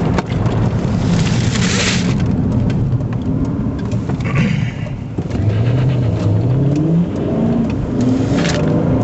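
Car engine accelerating hard over steady road noise, its pitch climbing about two-thirds of the way through, with a couple of brief rushes of hiss.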